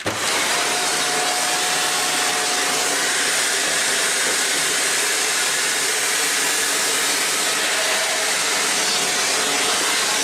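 Shark NZ850UKT upright vacuum cleaner starting up abruptly and running steadily, drawing air through its detached wand: an even rushing hiss with a faint steady whine.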